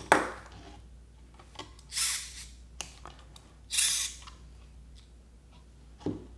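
Hands handling a 3D-printed plastic housing with a small servo fitted: a sharp plastic knock, then two short scraping rustles about two and four seconds in, and a softer knock near the end.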